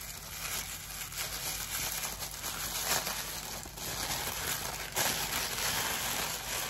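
Black tissue paper crinkling and rustling as it is unwrapped from around an object by hand, louder about three and five seconds in.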